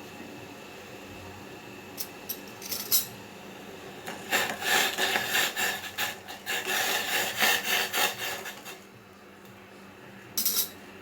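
A few sharp clicks, then about four seconds of rapid, uneven rubbing or scraping strokes, and one short scrape near the end.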